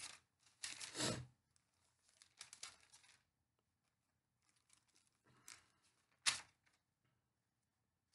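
Thin Bible pages being leafed through by hand: a few brief, faint papery rustles and flicks, the loudest about a second in and a short sharp flick a little after six seconds.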